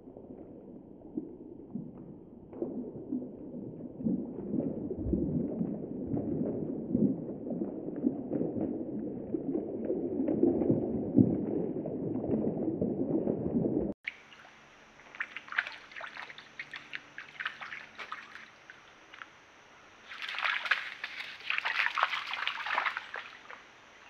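White-tailed deer wading in a shallow creek, water sloshing and splashing unevenly with its steps. After a sudden cut about halfway through, a quieter stretch of short scattered rustling sounds.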